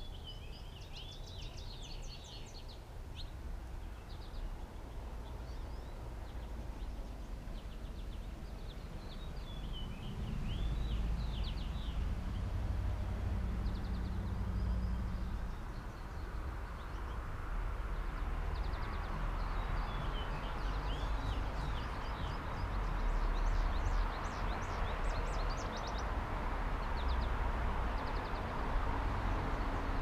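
Songbirds singing quick, high chirping phrases in three spells: at the start, around ten seconds in, and a longer stretch past the middle. Under them runs a low rumble that gets louder about a third of the way through.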